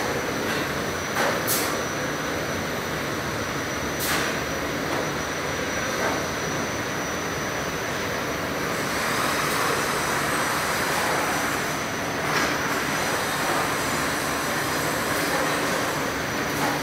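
Bakery tunnel oven and its conveyor belts running: a steady mechanical hiss and rumble with a thin high whine held steady, broken by a few sharp clacks.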